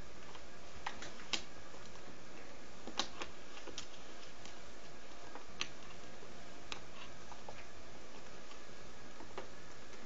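Kittens' paws and claws tapping and clicking on a hardwood floor and a slipper as they play: a handful of light, irregularly spaced clicks over a steady background hiss.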